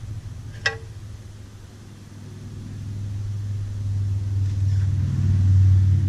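A single sharp metallic clink about a second in, as a wrench is set on a tractor's oil drain plug, over a low engine rumble that swells louder toward the end.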